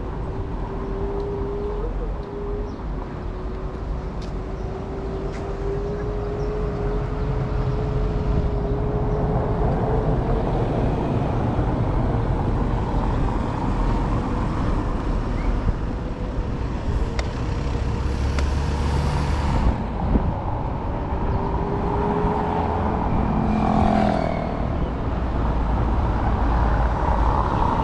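Marti electric scooter riding along a road: a thin steady motor whine that slowly rises in pitch over a low rumble, with traffic passing, loudest about two-thirds of the way through.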